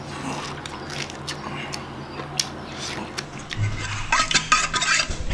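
Wet clicks and smacking of a person chewing an orange segment. About three and a half seconds in, this gives way to denser clicking and scraping as a hand works in a stainless steel bowl.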